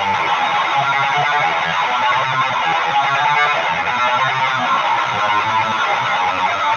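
Electric guitar tuned to B standard, played through a Boss HM-2 Heavy Metal pedal boosted by a Boss SD-1 into a Jet City JCA22H tube amp: continuous low riffing with the thick, buzzing HM-2 'chainsaw' distortion.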